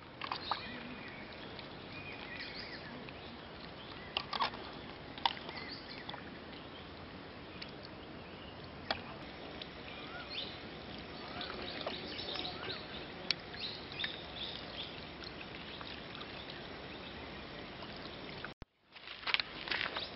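Raw fish pieces being washed by hand in a steel bowl of salted water: wet sloshing and handling, with a few sharp knocks against the bowl, over a steady background hiss.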